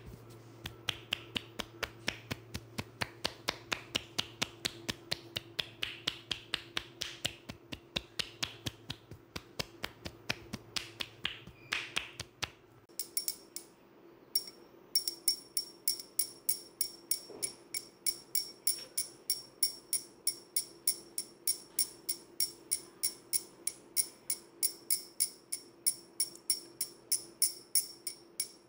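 Rapid percussive chopping of pressed-together palms on a man's head, about five sharp taps a second. About 13 seconds in this gives way to steel scissors clicking near the ear about three times a second, each click ringing with a high metallic tone.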